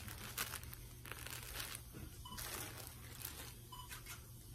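Quiet, irregular crinkling and rustling of packaging being handled, with scattered light clicks.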